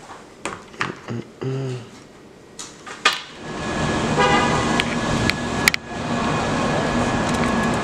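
Quiet room sound with a few soft clicks, then steady city street traffic noise that comes in about three seconds in. A short car horn honk sounds about a second later, and a few sharp clicks are heard.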